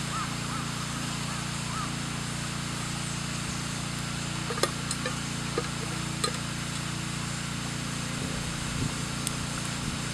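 Wood campfire burning: a steady hiss with a few sharp crackles scattered through it.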